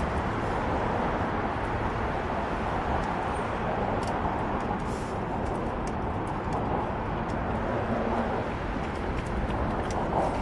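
Steady wind rush buffeting an action camera's microphone, with road rumble from a fixed-gear bicycle riding at speed along a bridge bike path.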